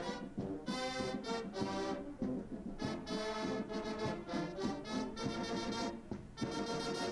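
Brass band playing, a run of detached notes with short gaps between them.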